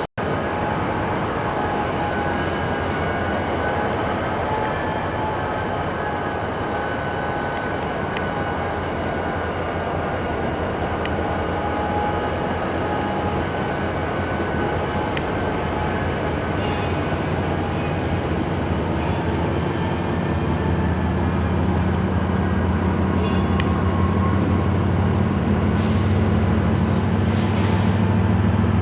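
Railcars rolling past in a rail yard, with a steady high-pitched wheel squeal held throughout and a few sharp clicks from the wheels and couplers. A diesel locomotive engine's low hum grows louder in the last third.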